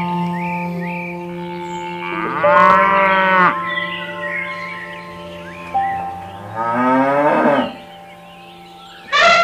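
A cow mooing twice, about two seconds in and again a few seconds later, the second call rising and then falling in pitch, over background music of sustained notes.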